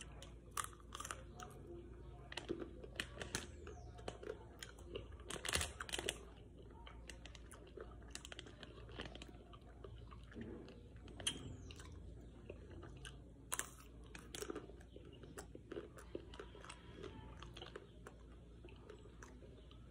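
Chewing and crunching of a Magnum ice cream bar's white chocolate coating with almond pieces: irregular crisp crunches, thickest in the first several seconds, then sparser single crunches.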